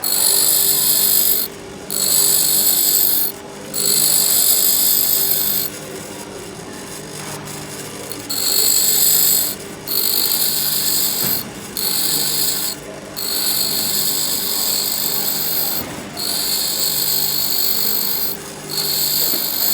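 Pedestal grinder motor running steadily while a steel drill bit is pressed against the spinning grinding wheel in repeated short passes, about eight of them, each a second or two of high hissing grind with brief breaks between. The passes sharpen the bit's cutting edge at an angle, and there is a longer break a few seconds in when only the motor hum is heard.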